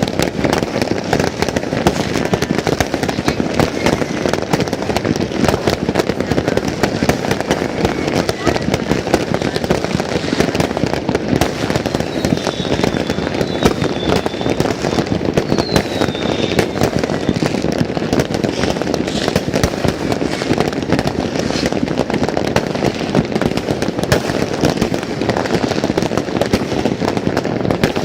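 New Year fireworks and firecrackers going off all at once: a dense, unbroken crackling and popping, with a few faint high whistles about halfway through.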